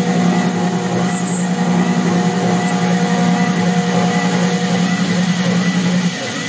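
Hobby CNC mill with a 6 mm four-flute endmill spinning at 15,000 rpm, trochoidal-milling a pocket in aluminium: a steady machining sound with fixed whining tones. The heavier cutting hum drops away about six seconds in, leaving a lighter running sound.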